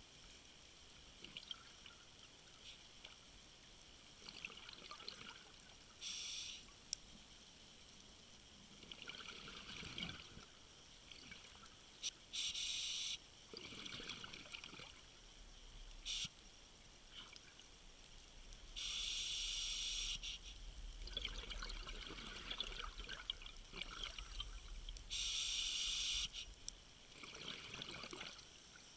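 Water splashing and trickling in irregular spurts, with a louder rush of hissing spray or water four times, each lasting about a second. A low rumble sits under the middle part.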